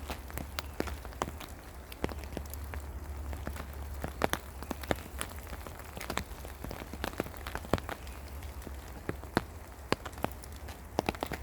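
Rain falling in a spring forest: many separate drops tapping irregularly over a soft steady patter, with a low rumble underneath.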